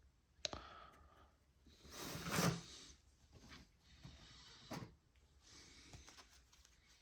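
Trading cards being handled: faint rustling with a sharp click about half a second in, a brief louder rustle around two seconds, and another click near five seconds.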